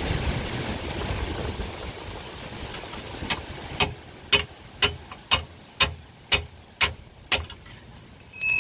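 A hammer striking metal on the car's front suspension nine times at an even pace, about two blows a second, with a ringing metal clink near the end. A vehicle engine's rumble is heard at first and fades over the first few seconds.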